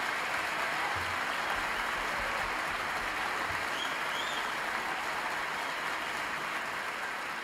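Audience applauding steadily, slowly fading toward the end, with a faint short whistle about halfway through.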